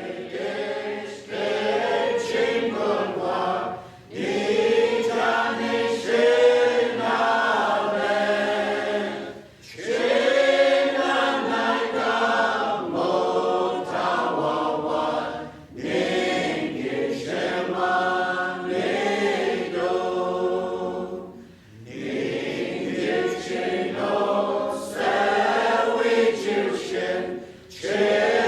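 A choir singing a hymn unaccompanied, in long phrases of about six seconds each with short breaks for breath between them.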